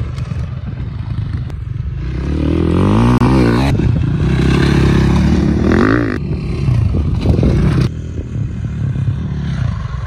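Motocross dirt bike engine revving up and down as it is ridden on a dirt track, with rising and falling pitch. It is loudest through the middle and drops off suddenly near the end.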